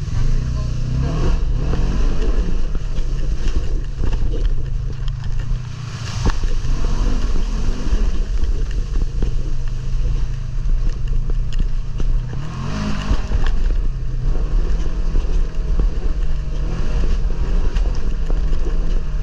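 ATV engine running steadily while under way.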